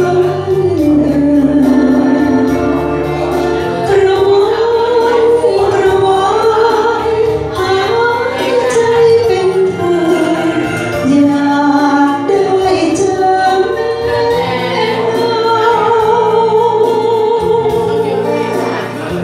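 A woman singing into a handheld microphone, holding long, gliding notes, her voice amplified through a PA loudspeaker over backing music with a steady bass line.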